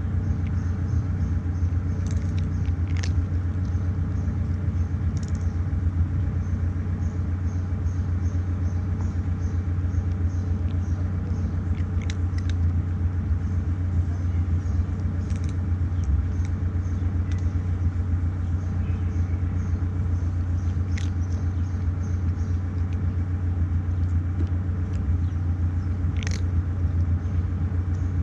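A steady low rumble of machinery or an engine running, with a few faint short crunches of a cat chewing dry kibble.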